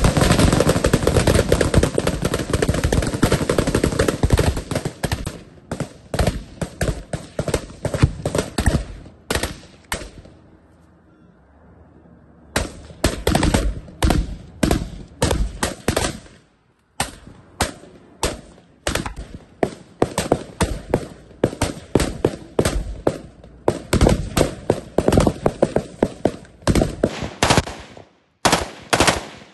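Kalashnikov-pattern assault rifles firing: first a dense spell of overlapping shots from several shooters, then quick strings of separate shots, a few per second, with a pause of about two seconds near the middle.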